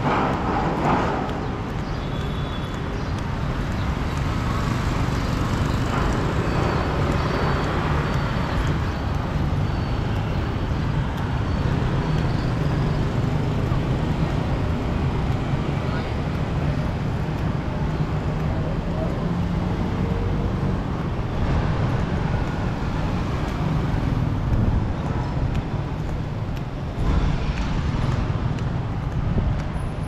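City street traffic: motor vehicles running past with a steady low engine hum, and people's voices mixed in.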